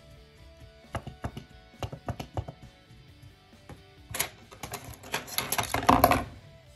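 Handling noise close to the microphone: irregular sharp clicks and rustles, thickening about four seconds in into a dense, louder crackle that stops near the end, over faint background music.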